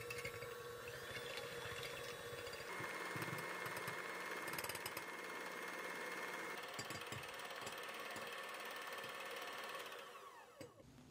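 Electric hand mixer running, its beaters whipping eggs in a glass bowl; the motor note changes to a higher one about three seconds in. Near the end the mixer is switched off and winds down with a falling whine.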